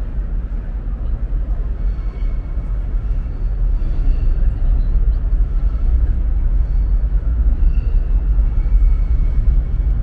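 Loud, steady low rumble of city outdoor noise, such as traffic or wind on the microphone, growing a little louder after a few seconds.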